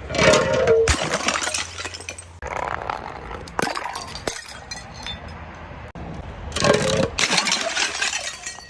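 Glass bottles being crushed and shattering in several loud crunching breaks, with brief ringing of glass and clinking shards between them.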